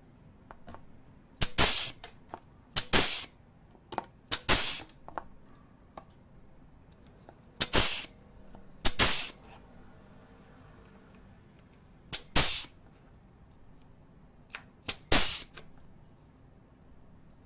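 GS-1212B 8 mm pneumatic air punch and flange tool cycling seven times as it punches holes through a cardboard card. Each stroke is a short click followed by a sharp burst of exhaust-air hiss.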